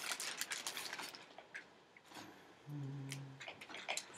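Plastic packaging and bubble wrap crinkling and crackling as a new laptop LCD panel is unwrapped, in irregular bursts of small crackles. A short low hum lasts under a second near the middle.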